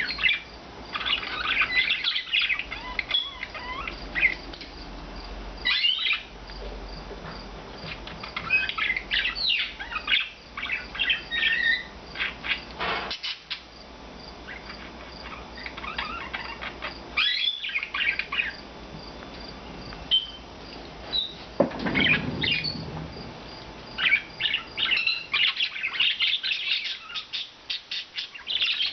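Pet budgerigars chirping and warbling in quick, high, irregular runs, with short pauses between bursts. About three-quarters of the way through there is a brief, lower rustling sound.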